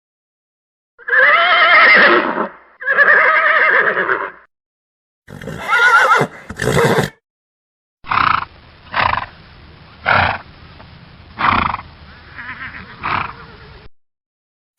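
Horse neighing: two long pitched whinnies back to back, then a shorter third call. After a pause comes a run of about six short sharp blasts of breath over a faint steady hiss.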